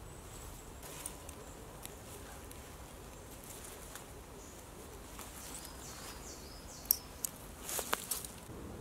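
Tent peg being worked loose and pulled out of leaf-littered woodland ground: a few small clicks, then near the end a sharp click and a short burst of scraping and rustling as it comes free. Faint birdsong sounds throughout.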